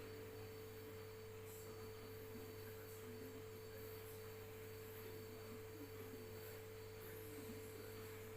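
Faint, steady background hum: one constant mid-pitched tone over a lower hum, with no cracks or clicks standing out.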